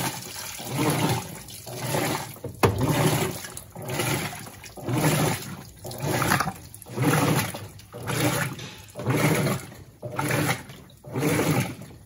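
Electrolux Blue Touch LB12Q 12 kg top-loading washing machine agitating its load of towels, the agitator churning the water back and forth in swells about once a second. This is the agitation at the start of the rinse, ahead of the fabric softener being released.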